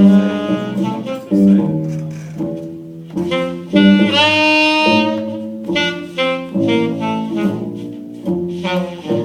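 Jazz saxophone solo over band accompaniment, with a long held note about four seconds in that scoops up into pitch.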